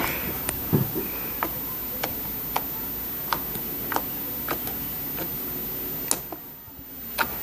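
Fingers squeezing and poking a lump of pink PVA-glue slime, giving a string of short sharp clicks and pops roughly every half second.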